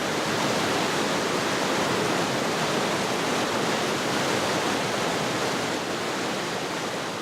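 Water of a mountain stream rushing over rapids, a steady, even rush that slowly grows fainter toward the end.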